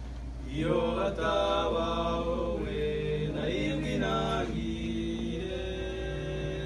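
Male vocal group singing a Kinyarwanda gospel song unaccompanied in several-part harmony, holding long chords; the voices swell in about half a second in. A steady low hum runs underneath.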